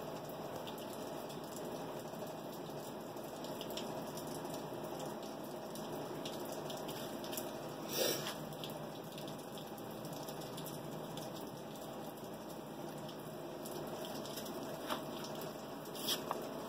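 Restored 1930s GE 10-inch oscillating desk fan running, a steady rush of air from its aluminum blades over the hum of the motor. One short knock about halfway through and a couple of small clicks near the end.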